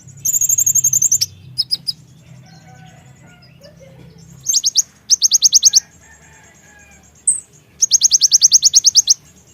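Kolibri ninja (konin) sunbird singing: three bursts of fast, high trilling notes, each about a second long, with a few short chirps in between.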